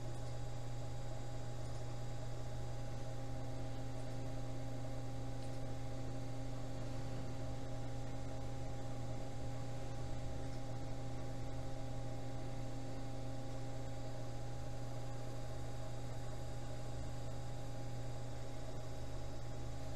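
Electric potter's wheel motor running with a steady hum, unchanging in pitch.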